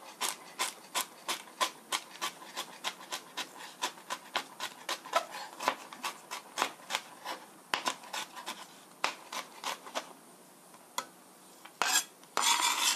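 Chef's knife mincing carrot on a cutting board: quick knocks of the blade on the board, about three or four a second, thinning out after about eight seconds. Near the end the flat of the blade scrapes across the board, gathering the minced carrot.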